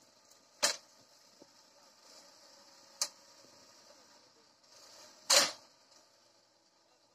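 Three sharp knocks, the loudest and longest about five seconds in, over the faint steady running of heavy machinery engines.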